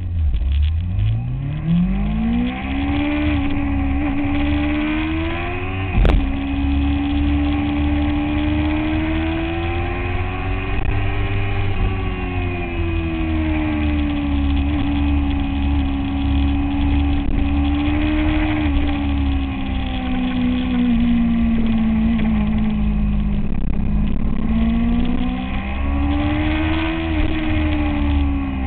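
Motorcycle engine heard onboard at speed, its pitch climbing steeply over the first few seconds as it accelerates, then rising and falling with the throttle. Wind rumbles on the microphone underneath, and there is one sharp click about six seconds in.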